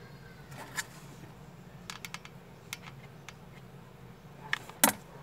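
Scattered light clicks and taps from handling a hot glue gun and a felt piece at a table, the sharpest and loudest knock near the end, over a steady low hum.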